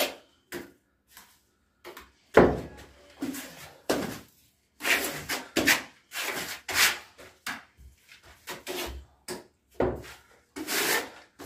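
Trowel scraping and spreading tile adhesive across a rough cement wall in a series of short rasping strokes. A sharp knock about two seconds in is the loudest sound.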